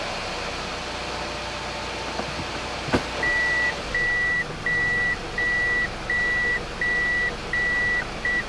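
A click of the automatic gearbox's selector about three seconds in, then the car's reverse warning buzzer beeping evenly, about three beeps every two seconds, over the steady idle of the 2.0-litre 1AZ engine. The selector is being cycled through every gear with a pause in each to push fresh transmission fluid through the valve body after a fluid change.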